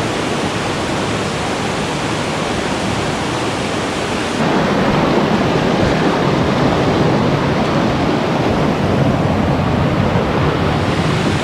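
Rushing water of a small creek tumbling over rocks and small waterfalls, a steady loud rush that gets louder about four and a half seconds in.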